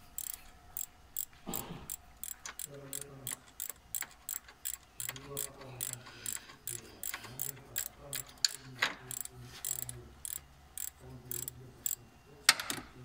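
Ratchet wrench clicking, about three to four clicks a second, as a bolt is turned by hand. There is a louder rasp about a second and a half in and another near the end.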